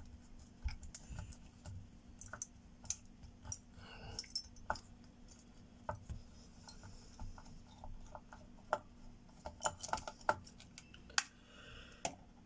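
Small screwdriver turning out screws from a graphics card's casing: irregular sharp clicks and ticks of the tip working in the screw heads, with a quick run of clicks late on.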